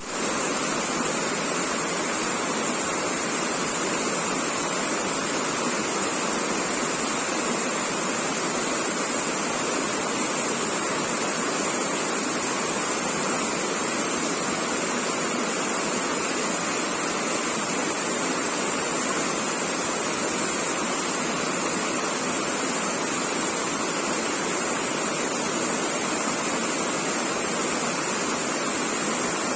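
Rain and water flowing along a waterway, a steady, even rushing hiss that does not change.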